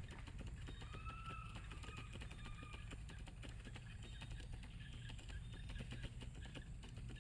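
Faint outdoor ambience: a steady low rumble with scattered soft clicks. About a second in comes a faint whistled call that rises and falls, followed by a shorter one near three seconds.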